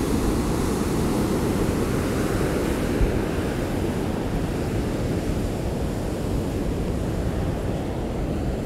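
Rough storm surf breaking and washing up the beach, a steady rush, with wind rumbling on the microphone.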